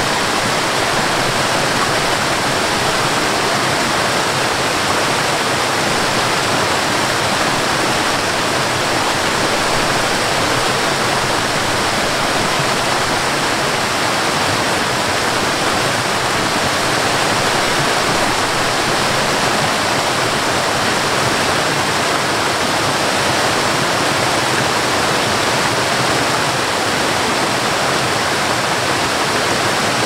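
A waterfall cascading over rocks: a steady, even rush of falling and splashing water that does not change.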